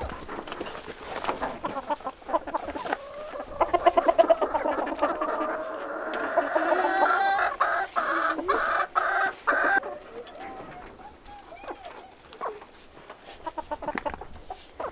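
Chickens clucking and squawking, busiest in the middle with one long drawn-out call, then thinning to scattered clucks. A few light knocks are heard near the start.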